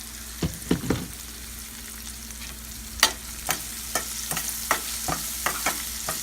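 Onion-and-spice tempering frying in oil in a pan with a steady sizzle, while a spoon stirs it and knocks against the pan about a dozen times, mostly in the second half.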